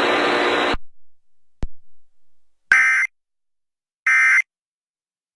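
Emergency Alert System end-of-message data bursts: short, harsh digital squawks about a third of a second long, repeating about every 1.3 s, two of them plus the start of a third. Before them a steady radio hiss cuts off under a second in, followed by a single click.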